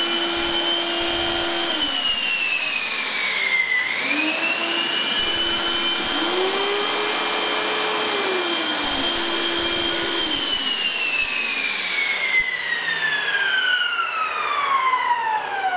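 Shop vac and power-tool motors running together through double-pole switches wired so the vacuum runs whenever a tool is on. A high steady whine dips in pitch and recovers once a few seconds in, then winds steadily down as the motors are switched off near the end.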